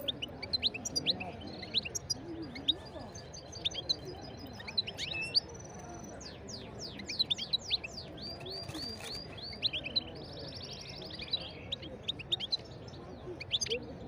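Caged European goldfinch singing: quick high twittering chirps, with a fast run of sweeping notes around the middle and a buzzy note about ten seconds in.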